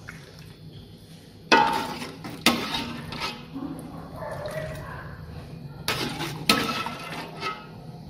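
A ladle clanking against the rims of an aluminium cooking pot and pan while stewed duck is ladled out: four sharp, ringing clanks in two pairs.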